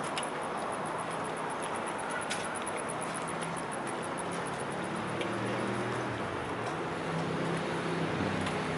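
Outdoor city ambience by a river: a steady wash of traffic and street noise, with a fast, even high ticking through the first half and a low engine hum growing stronger in the second half.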